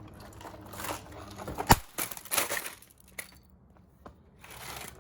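Broken plastic parts of a cheap robot vacuum being handled and pulled apart: rustling and scraping with scattered sharp clicks, the loudest a little under two seconds in.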